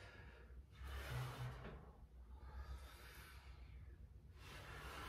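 A person breathing hard while doing squats: three soft, hissy breaths about a second and a half apart.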